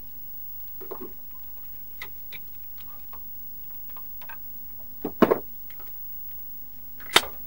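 Light clicks and taps of a CRT television's plastic chassis and wiring being handled, with two sharp snaps about five seconds in and near the end, as the degaussing wire is worked free of the main circuit board.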